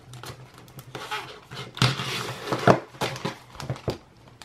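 A clear plastic binder pocket being handled: rustling and crinkling of the plastic, with several sharp clicks, as a paper bill is tucked in and the binder closed.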